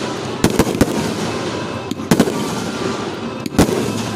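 Fireworks going off: three sharp bangs in quick succession about half a second in, another about two seconds in and one more near the end, over a steady crackle.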